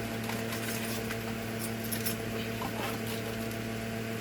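Replacement dryer heating element kit being unpacked: scattered faint clicks and rustles of the packaging and small metal parts being handled, over a steady low electrical hum.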